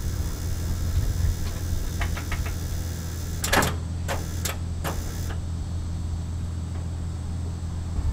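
Steady low engine hum, with a few light clicks about two seconds in and then a heavy clunk and several sharper knocks between three and a half and five seconds in: a failed attempt to start a Mack R Model dump truck whose batteries are dead.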